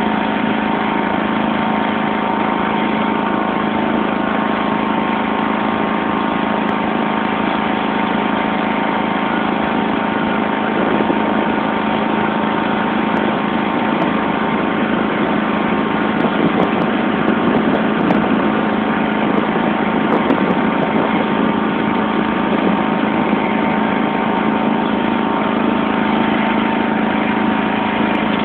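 1991 John Deere LX176 lawn tractor's engine running steadily as the tractor is driven, with a slightly louder spell about halfway through.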